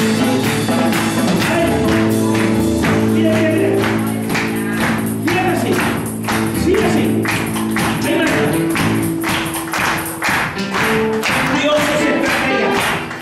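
Worship music: sustained keyboard-like chords over a steady, quick percussion beat.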